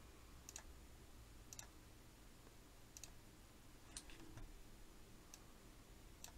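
Faint computer mouse clicks: about six single clicks at uneven intervals.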